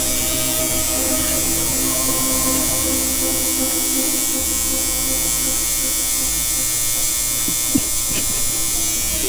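Electric tattoo machine buzzing steadily while the artist tattoos.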